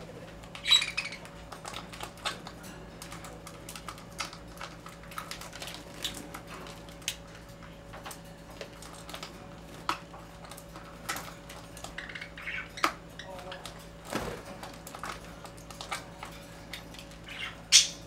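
Budgerigars bathing in a plastic tub of water: a steady string of small clicks, taps and splashes, with a few short chirps, the loudest about a second in and just before the end.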